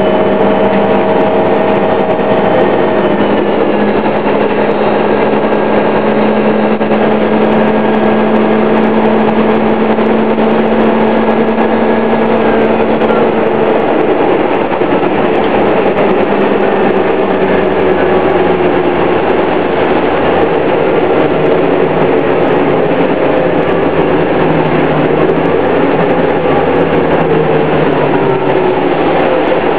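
Detroit Diesel Series 50 engine and Allison B400R transmission of a 2000 New Flyer D60 articulated bus running with a loud, steady whine. Its tones hold for the first half and then shift and glide in pitch as the engine speed changes.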